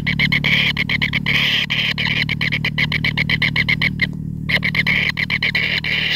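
Kingfisher nestlings in their nest burrow calling with a fast, rattling chatter of about six pulses a second, breaking off briefly about four seconds in.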